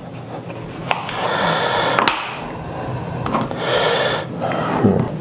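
Handling sounds as mozzarella is tipped onto a small plate: two spells of rustling and scraping, about a second in and again near four seconds, with a few sharp clicks over a low steady hum.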